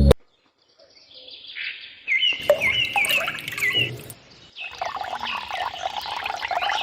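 Birds chirping in short, quickly repeated calls over a light background hiss, starting about two seconds in after a brief silence.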